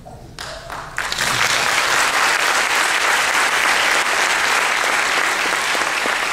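Audience applauding: the clapping starts within the first second, swells to full strength about a second in, holds steady and begins to die away near the end.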